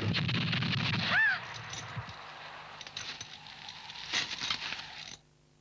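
Film soundtrack of a firing-squad execution: a rope-tensioned field drum is beaten in a rapid roll, cut off about a second in by a loud volley of rifle shots. Quieter crackling follows, with another sharp shot near four seconds, and the sound cuts off abruptly just before the end.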